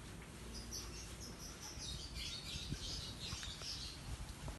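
Small birds chirping in quick repeated clusters of high notes, over a low steady rumble.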